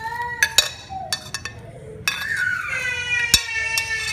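Sharp clinks and knocks of a utensil and ceramic plate against the pot as grilled fish is scraped into boiling soup, about half a dozen, the loudest a knock a little over three seconds in. A continuous high, wavering pitched tone sounds underneath throughout.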